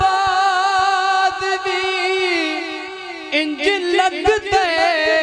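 A man singing a Punjabi naat, a devotional song in praise of the Prophet, into a handheld microphone. He holds a long wavering note for about three seconds, then moves into quicker sung phrases.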